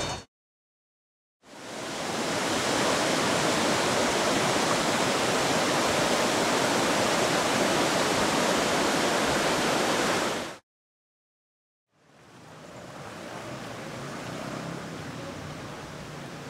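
Floodwater of the overflowing Whetstone Brook rushing, a steady even noise. It drops out twice in short silences and comes back quieter after the second.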